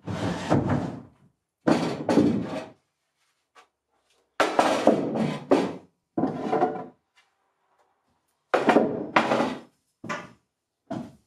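Wooden knocks, bumps and scuffs from a person clambering in through a plywood sailboat's companionway hatch, knees and boots on the deck and hands on the hatch frame. They come in about seven separate spells, each a second or less, with short pauses between.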